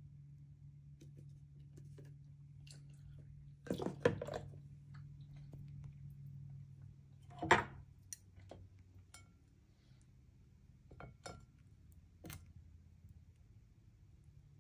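Kitchen handling sounds: scattered clinks and knocks of dishes and utensils, loudest about four seconds in and again about seven and a half seconds in, over a low steady hum.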